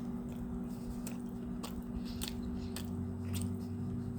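Biting into and chewing a slice of crispy-crusted pizza, with a handful of sharp crunches spread through, over a steady low hum.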